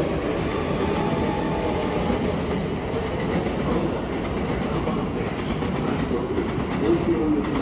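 A JR Chuo Line electric commuter train pulling out of the station on a neighbouring track, with steady running noise.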